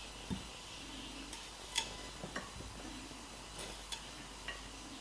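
Knife cutting a red radish on a cutting board: a handful of sharp taps at irregular intervals, the loudest nearly two seconds in.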